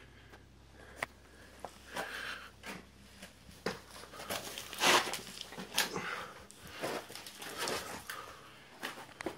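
Irregular scuffs, knocks and breathy rustles of someone moving about close to the microphone inside a small rock cave. The loudest scrape comes about halfway through.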